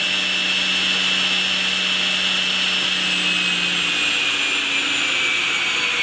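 A 1977 Martin T17 sliding table saw, its 7.5 horsepower motor and new blade running free at full speed: a steady high whine over a low hum, the whine drifting slowly lower in pitch. It runs smooth, with not a lot of vibration.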